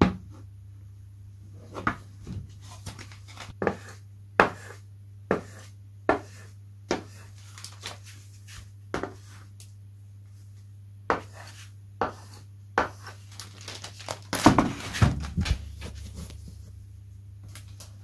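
Sharp taps and clicks, about one a second, from handling a balsa model wing and its plastic covering film, with a louder spell of knocking and rustling about fourteen seconds in as the wing is lifted and turned. A faint steady low hum runs underneath.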